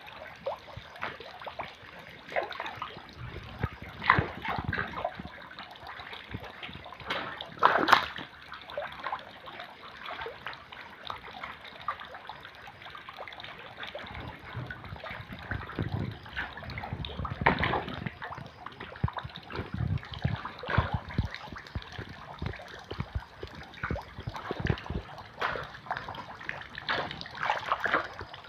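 Water in a concrete catfish pond splashing and sloshing as a crowd of catfish thrash at the surface. The splashes come irregularly, with sharper ones about four and eight seconds in.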